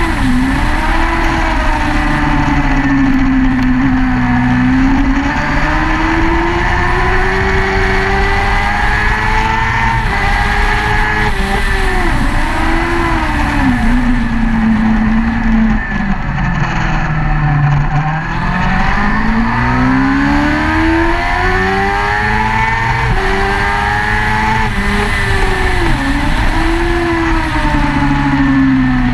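Motorcycle engine heard from on board at racing speed, with steady wind rush. The revs climb through the gears with a short break at each upshift, drop away low under braking a little past halfway, then climb again through several quick upshifts.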